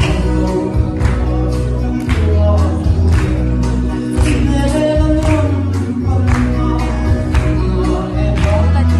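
A Mizo gospel song sung by a male vocalist through a church PA, with music and a drum beating about once a second.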